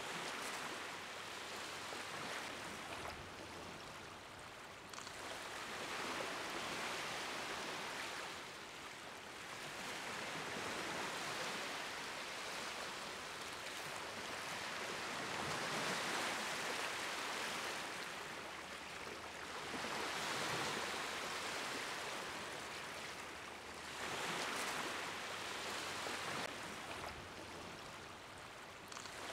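Waves washing in on a shore, a steady rush of water that swells and falls back about every four or five seconds.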